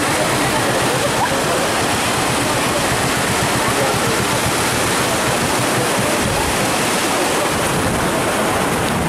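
Sea waves breaking and washing up a sandy beach: a steady rushing noise, with faint voices of people in the background.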